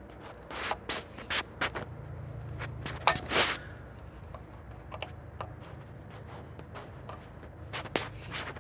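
Torque screwdriver working the lug screws on an EV charger's terminal block: scattered sharp clicks and scraping of metal tool on screw, with a louder rasping scrape about three seconds in.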